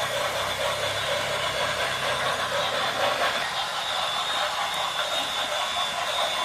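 Model train running along the track: a steady mechanical rattle with hiss, and a low hum that fades out about halfway through.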